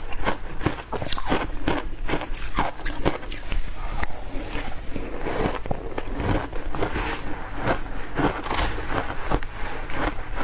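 Ice being bitten and crunched close to the microphone: a quick, irregular run of crisp cracks and crunches.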